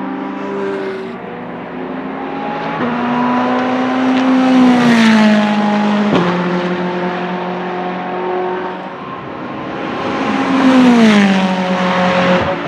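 Ferrari 488 GT3 race cars with 3.9-litre twin-turbo V8 engines passing by twice, each engine note getting louder and then dropping in pitch as the car goes past. There is a brief sharp crack about six seconds in.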